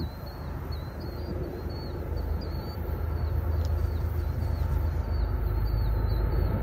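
A bird chirping over and over, short high falling notes about twice a second, over a steady low rumble.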